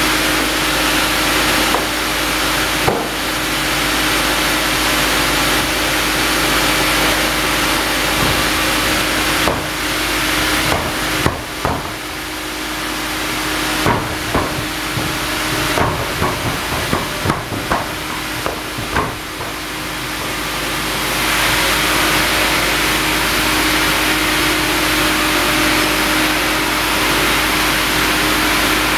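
Sawmill band-saw headrig and log carriage running with a steady hum. A string of clunks and knocks comes through the middle as the carriage grips and sets a cinnamon log. From about two-thirds in a louder, hissing steady noise takes over as the log is fed toward the band-saw blade.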